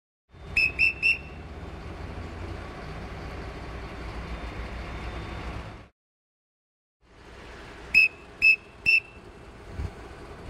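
Three short, sharp blasts on a dogger's whistle, the crane signal for luffing the boom up, over a steady low rumble. After a brief silence the three short blasts come again, with a single thump soon after.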